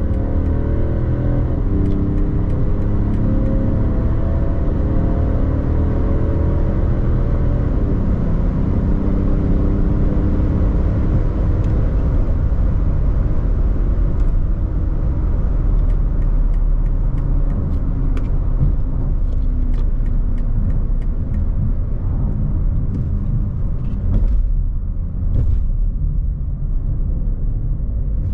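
Alpina XD3's quad-turbo diesel straight-six accelerating hard from about 100 to 200 km/h. Its engine note climbs in pitch for the first several seconds, then merges into a steady, dense rush of wind and tyre noise as speed builds.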